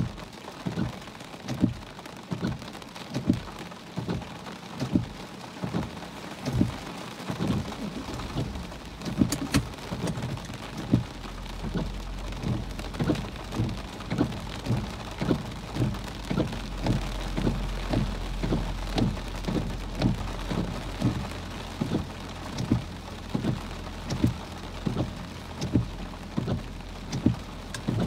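Heavy rain beating on a car's windshield and body during a thunderstorm, heard from inside the car, with a regular low thump about every two-thirds of a second. A low steady rumble sets in about a third of the way through.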